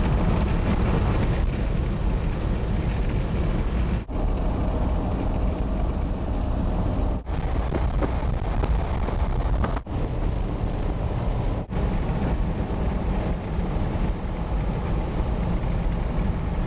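Jeep Wagoneer driving on the highway: steady engine and road noise with wind on the microphone, cut short by four brief dropouts along the way.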